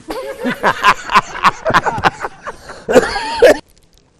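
A man making rapid non-speech vocal sounds with his mouth: sharp clicks among short squealing, bending cries. They stop abruptly about three and a half seconds in.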